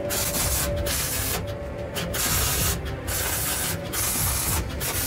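MIG wire-feed welder striking a run of short tack welds on steel tubing. It gives a crackling, sizzling hiss in about six or seven bursts, each under a second, with brief pauses between them.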